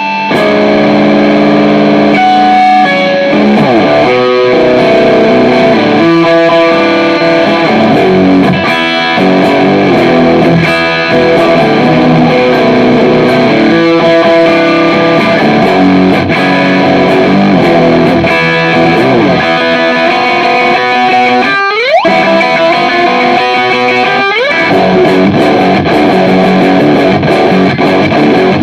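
Distorted electric guitar played through a Tech 21 SansAmp Classic amp-simulator pedal, running through grunge riffs of ringing, distorted chords. Late on come two quick rising slides.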